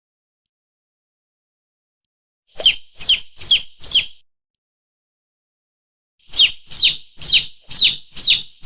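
Lure call for mongoose and monitor lizard: short, shrill bird-like chirps, each dropping in pitch, in quick groups, four about two and a half seconds in, then a run of six from about six seconds in.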